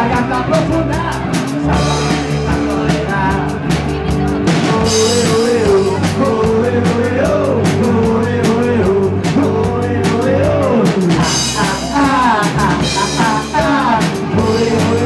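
Live rock band playing at full volume: a drum kit keeping a steady beat with cymbals, electric bass and electric guitar through amplifiers, and a man singing.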